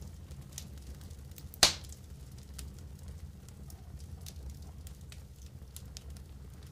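Wood fire crackling with scattered small pops over a low steady rumble, and one loud sharp snap about a second and a half in.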